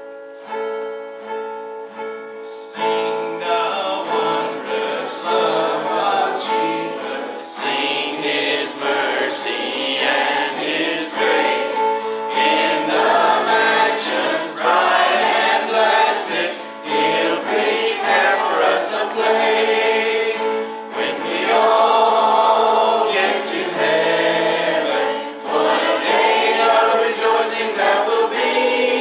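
Small worship group of mixed men's, women's and a child's voices singing a gospel song together, accompanied by acoustic guitar. A held guitar chord rings alone for the first few seconds before the voices come in.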